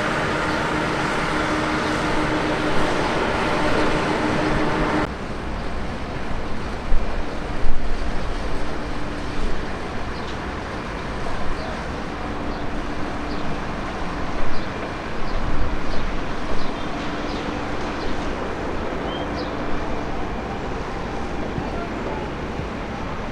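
Aircraft engines running at an airport, a steady hum with several held tones that changes abruptly about five seconds in to a rougher, gustier engine noise with a fainter tone.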